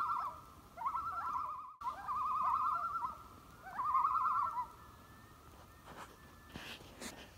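A bird's repeated wavering calls, each sliding up briefly and then quavering rapidly around one pitch for about a second. Three or four come in quick succession, and they stop a little past the middle.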